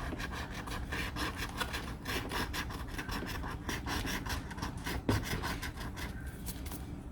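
Scratch-off lottery ticket being scratched: many quick, rasping rubbing strokes across the card's scratch-off coating.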